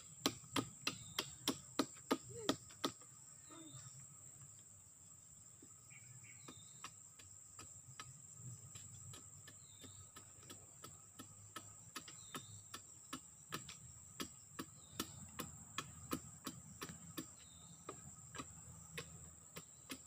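A knife chopping and shaving a piece of wood into a toy machete blade: a run of sharp taps, about three or four a second, that thins out about three seconds in and picks up again a few seconds later. A steady high insect drone runs underneath.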